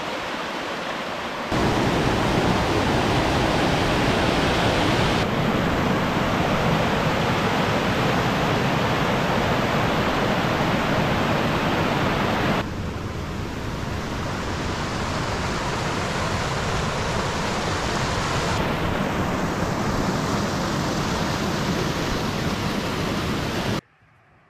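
Rushing water of a fast-flowing mountain waterfall and beck, running high after heavy rain: a steady dense rush that jumps in level at several cuts, then drops abruptly to near silence just before the end.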